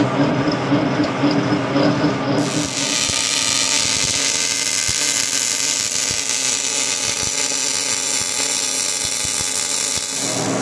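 Boring mill running with its boring bar in the bore for the first couple of seconds. Then the arc of an automatic bore welder lays weld inside the bore: a steady hiss with scattered crackles that stops shortly before the end.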